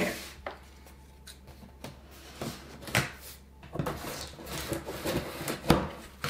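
Scissors slitting packing tape on a cardboard box, then the cardboard flaps being pulled open: scattered scrapes, crackles and clicks, busiest in the second half, with the sharpest snap a little before the end.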